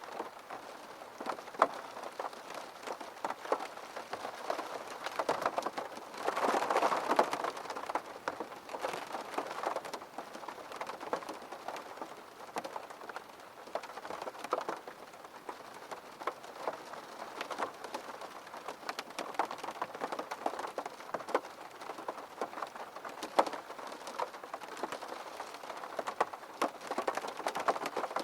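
Steady rain falling, with many sharp individual drops striking a hard surface; the rain swells louder briefly about six to eight seconds in.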